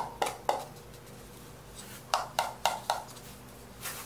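Two paper cups tapped against each other, making hollow 'tong tong' taps: three quick taps at the start, then four more about two seconds in, each about a quarter second apart. A brief papery rustle near the end.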